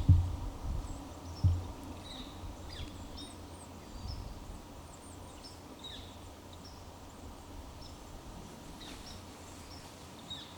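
Small birds chirping, many short high calls scattered throughout over a steady outdoor background, with two low thumps in the first two seconds.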